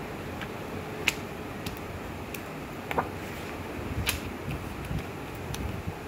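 Printed note booklets and glossy leaflets being handled: pages turned and papers shifted, with a few sharp clicks and taps, the loudest about a second in, about three seconds in and about four seconds in, over a steady background hiss.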